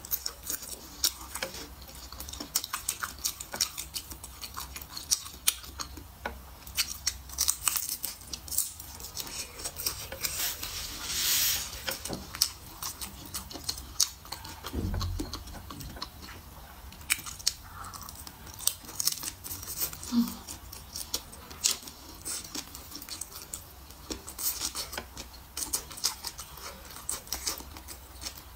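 Close-miked biting and chewing of a pan-fried grilled pork sausage: a steady stream of short wet clicks and smacks from the mouth, with one louder noisy burst lasting about a second around eleven seconds in.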